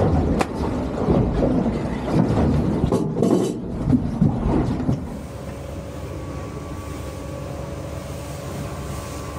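Knocks and handling noise on a boat deck. About five seconds in, this gives way to the steady drone of the boat's outboard motor under way, with rushing water and wind.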